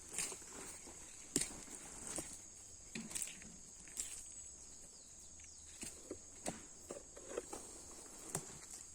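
Footsteps on a muddy, slippery forest trail, irregular steps about once a second, over a steady high-pitched drone of insects.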